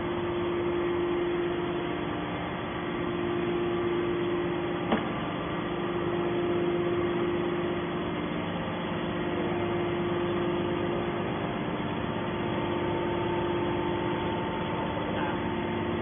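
Hydraulic scrap metal baler's power unit running at rest, a steady hum with a constant tone. A single sharp click about five seconds in.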